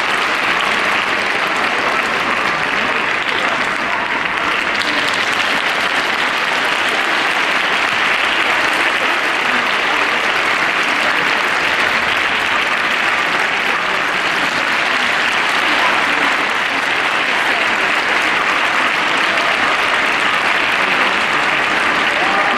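Arena audience applauding steadily.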